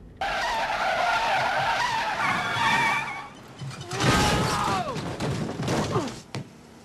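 Car tyres screeching in a skid for about three seconds. A second squeal comes about four seconds in and falls in pitch as it dies away.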